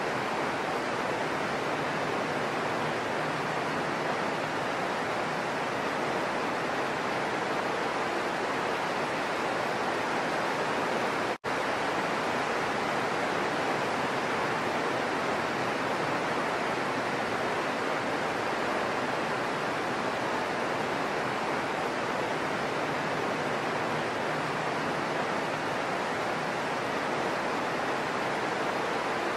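Heavy rain falling steadily as an even hiss, broken once by a momentary silent gap about eleven seconds in.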